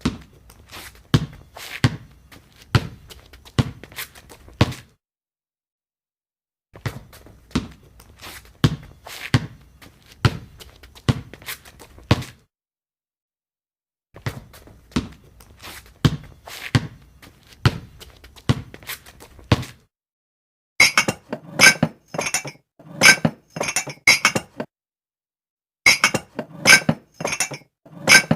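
Separate sound samples split by short silences: three runs of dull knocks, each lasting about five seconds with several thuds a second. About twenty seconds in, two runs of bright, ringing clinks like glasses or dishes knocking together.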